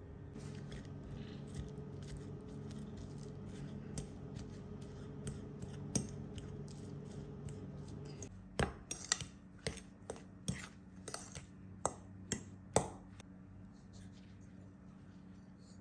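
Kitchen food-prep sounds: scattered light clicks and taps, then a run of about ten sharper knocks in the second half, like utensils working on potatoes. A low steady hum stops about halfway through.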